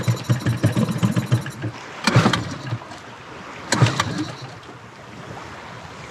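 Small Mercury outboard motor on an inflatable dinghy running briefly with a fast, even pulse, cutting out about a second and a half in. Its pull-start cord is then yanked twice, about two seconds apart, and the motor does not catch.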